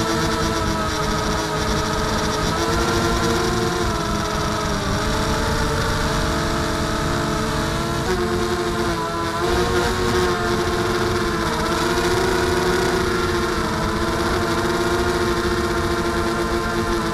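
Mini FPV drone's motors and propellers whining steadily, recorded from the drone itself; the tones drift up and down a little in pitch with throttle, over a constant rush of noise.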